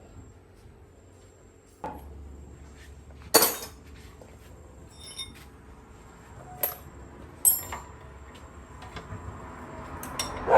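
Metal tools clinking and knocking against metal, about half a dozen separate strikes, the loudest about three and a half seconds in.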